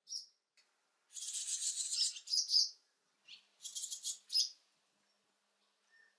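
Barn swallow nestlings begging at the nest in two bouts of high, scratchy chatter: one about a second in lasting nearly two seconds, another near four seconds. A single short chirp comes at the very start.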